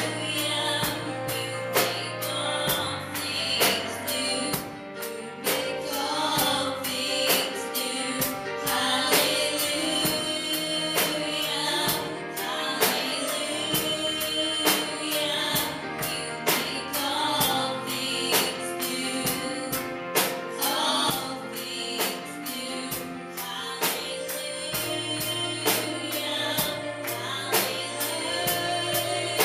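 Gospel song sung by two women over an instrumental backing with a steady beat.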